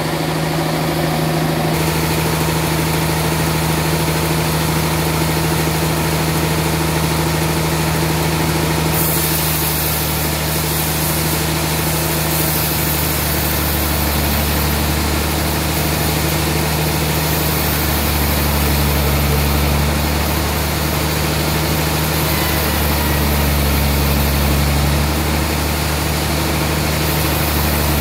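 Large sawmill saw running steadily with a low mechanical hum as it cuts lengthwise through a trembesi (rain tree) log on the carriage; a higher hiss joins about nine seconds in.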